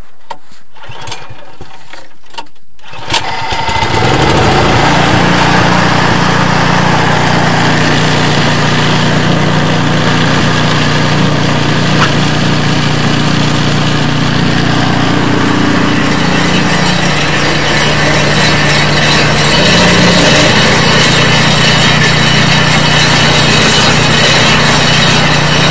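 A few clicks, then about three seconds in the snowblower's Briggs & Stratton engine starts and runs at a steady, even speed, getting a little louder about twenty seconds in.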